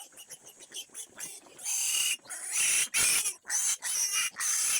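A pig squealing: a few short squeaks, then from about two seconds in a run of about five loud, harsh, shrill screams in quick succession.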